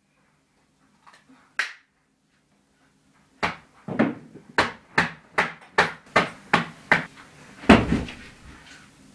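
A run of about ten sharp knocks, roughly two or three a second, followed about three-quarters of the way through by a single louder, heavier thump. A lone knock comes a little over a second and a half in, before the run.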